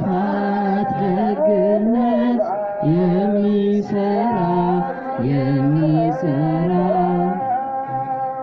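A male voice singing an Amharic Ethiopian Orthodox hymn (mezmur) in long held notes with small melodic turns, in phrases of about two seconds, with begena lyres in the ensemble.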